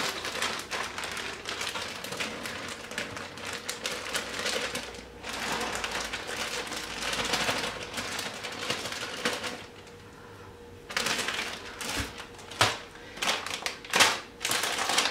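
Plastic freezer bag crinkling and rustling as browned ground beef is shaken out of it into a slow cooker. A short lull about two-thirds of the way through, then a few separate crinkles and taps.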